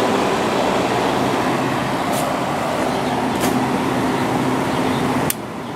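Fedders-built Hampton Bay 5,100 BTU window air conditioner running with its Samsung compressor and LG fan motor: a steady rush of air over a low hum, with a couple of faint clicks. The sound drops off abruptly about five seconds in.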